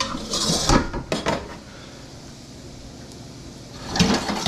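Metal cookware clattering on a gas range: a sheet pan set down onto the stovetop with a short scrape and a couple of knocks, then more clattering near the end.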